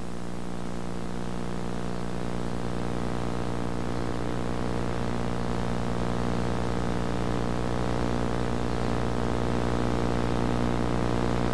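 A steady droning hum with many overtones and a faint regular low pulse, growing slightly louder over the span, with no clicks or knocks from tools.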